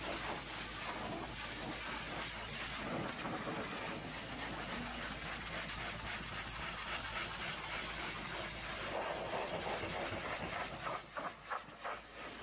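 High-pressure washer jet hissing as it blasts a truck's spare tyre and steel toolbox, the spray spattering off rubber and metal. Near the end the sound falls away in short gaps and comes back a few times.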